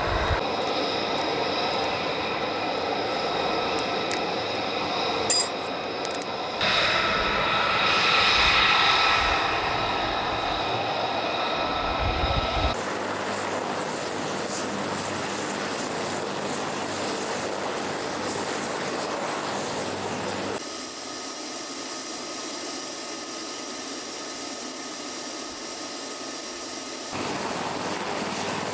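AH-1Z Viper attack helicopters running on the ground: a steady turbine whine over the rush of the turning rotors. The sound shifts abruptly a few times and is louder in the first half.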